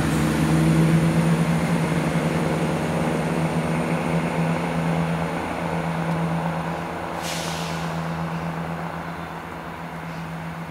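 Three-coach diesel multiple unit pulling away, its engines' steady drone slowly fading as it draws off. A short hiss of air comes about seven seconds in.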